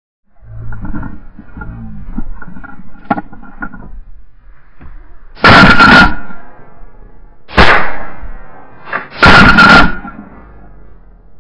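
Three loud shotgun blasts from a waterfowl hunter firing at geese overhead, each ringing out for about a second. The first comes about halfway in, and the next two follow at roughly two-second gaps.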